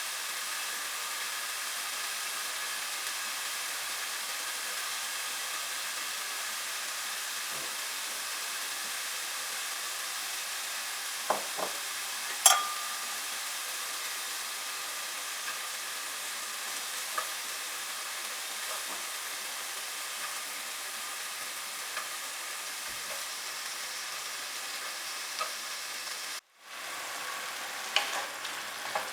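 Chicken frying in a pan with a steady sizzle, a few sharp clicks of a utensil against the pan scattered through it. The sound cuts out briefly near the end and resumes with a quicker run of clicks as the food is stirred.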